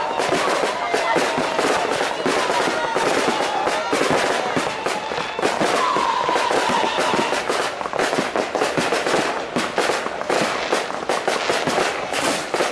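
Fireworks display: a continuous rapid series of bangs and crackles from aerial shells bursting overhead.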